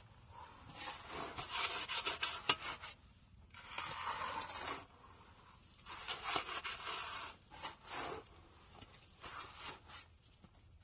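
Steel shovels scraping and turning a hand-mixed batch of concrete on the ground: repeated gritty scrapes, each about a second long, with short pauses between strokes.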